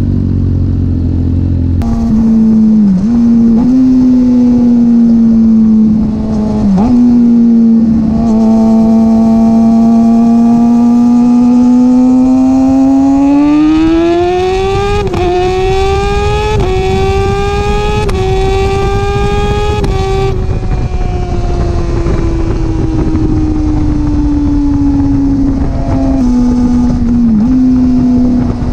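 Kawasaki ZX-6R 636 inline-four running through an aftermarket M4 exhaust with a decatted baffle, recorded right beside the muffler while riding. It holds a steady high drone, then climbs in revs with a few brief dips as gears change, and falls away again as the throttle comes off.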